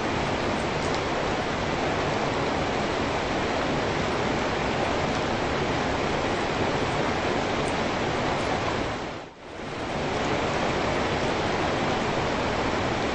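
Steady rain falling, an even hiss of drops. About nine seconds in it fades down briefly and comes straight back.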